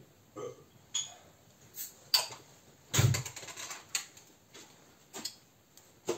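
Scattered sharp clicks and light knocks of hands handling the Marui M9 AEP pistol's frame and small parts, with a louder clattering knock about three seconds in.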